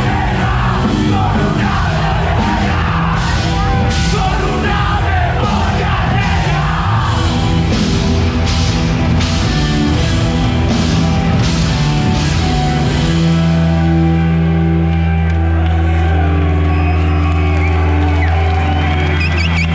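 Live rock band playing loud, with yelled vocals over the instruments. About two-thirds of the way in the vocals stop and a held low chord rings on steadily.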